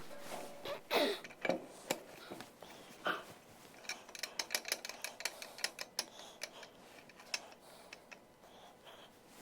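Small metal tools and parts being handled on a workbench: scattered clicks and clinks, with a quick run of small ticks about four to six seconds in.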